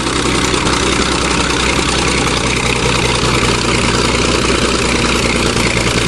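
Small crawler bulldozer's engine running steadily under load as the dozer climbs a steep dirt hill.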